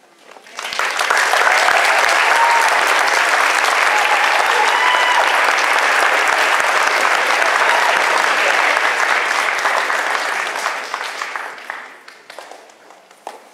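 Audience applauding: the clapping starts about half a second in, holds steady for about ten seconds, then dies away near the end.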